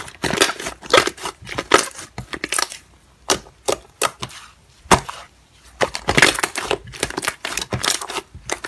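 Slime squished, poked and kneaded by hand, giving irregular sticky pops and crackles. A quieter stretch in the middle holds only a few single pops before the crackling thickens again near the end.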